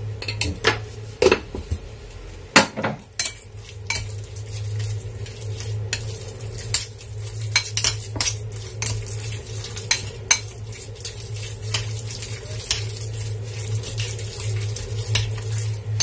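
Metal spoon clinking and scraping against a ceramic bowl while minced chicken is stirred together with its cornflour marinade. The clicks come quick and irregular, over a steady low hum.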